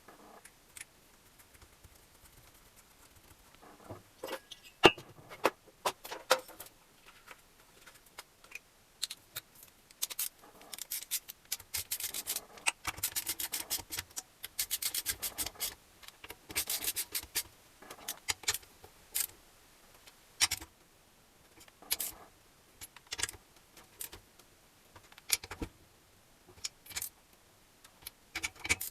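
Metal tools and engine parts clinking, rattling and scraping during hand assembly of an engine, in short bursts with a sharp knock about five seconds in and quick runs of clicks in the middle.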